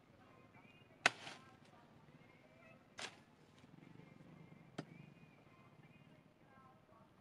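A big knife forged from steel rebar chopping into sapling wood and branches: three sharp chops about two seconds apart, the first the loudest, and another at the very end.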